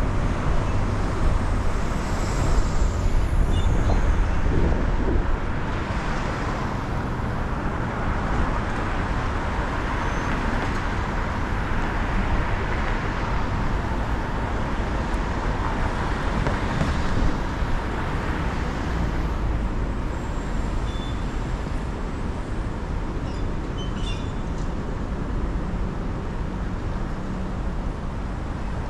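Steady traffic and road noise of a car driving through city streets, with a constant low rumble, a little louder in the first few seconds.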